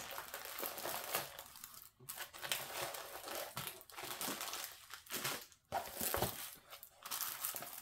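Clear plastic protective film on a rolled diamond painting canvas crinkling as the canvas is unrolled and smoothed flat by hand. It crackles on and off, with brief pauses about two seconds in and again a little past five seconds.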